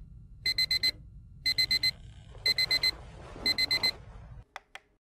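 Digital alarm clock beeping in quick groups of four, one group a second, over a rustle of bedding. It is cut off about four and a half seconds in, followed by two quick clicks as it is switched off.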